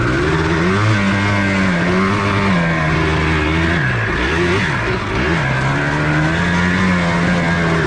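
1994 Yamaha Blaster 200's two-stroke engine running under riding load, its pitch rising and falling as the throttle is worked, with a quick drop and climb back about four to five seconds in.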